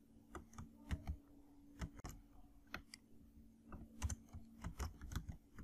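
Typing on a computer keyboard: scattered, irregular keystrokes while code is edited, over a faint steady low hum.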